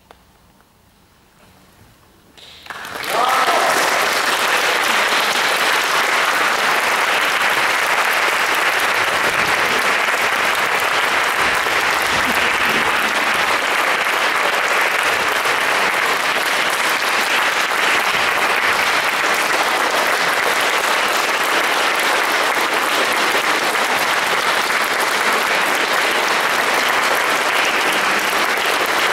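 A hush lasting a few seconds at the end of a piece, then audience applause breaks out suddenly about three seconds in and continues steadily.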